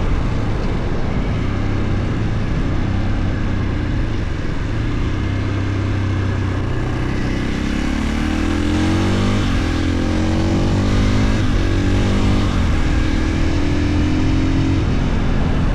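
2022 Husqvarna FE 450 supermoto's single-cylinder four-stroke engine under way, running steadily at first. From about halfway it revs up in three rising pulls with two short breaks between them.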